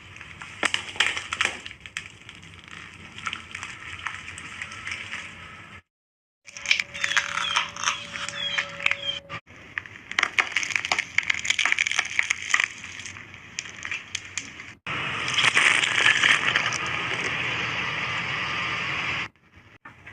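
Car tyre rolling over and crushing objects: crackling, cracking and crunching in several short clips joined by abrupt cuts. A louder, steady crackle fills the last few seconds.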